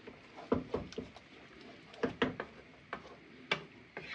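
Wooden spoon knocking and scraping against a nonstick frying pan while stirring a cream seafood sauce: irregular light knocks, a couple a second.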